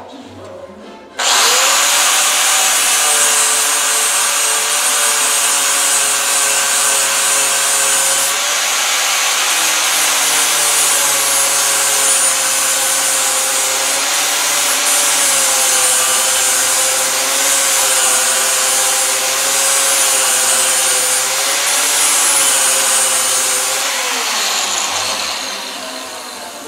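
Handheld grinder switched on about a second in, grinding down welds on the steel lower body panel of a 1950 Ford with a steady whine and hiss. It spins down near the end.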